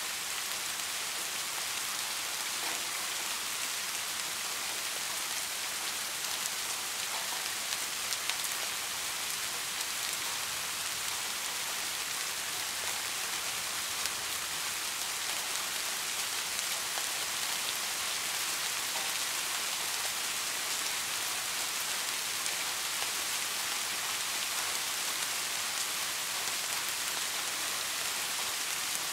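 Steady rain: an even, high hiss with faint scattered ticks of drops.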